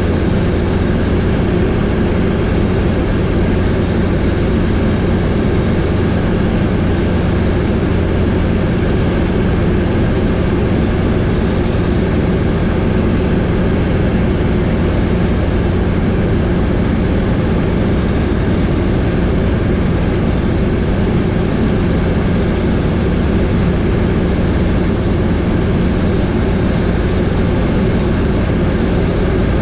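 Helicopter in flight heard from on board: a loud, steady drone of engine and rotor that does not change.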